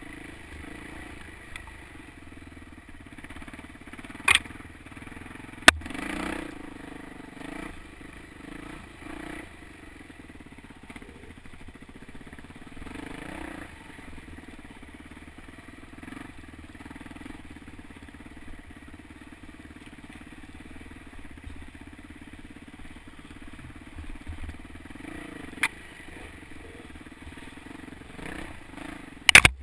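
Yamaha YZ426F four-stroke single-cylinder dirt bike engine running at trail speed, swelling and easing with the throttle. Several sharp knocks cut through it, the loudest near the end.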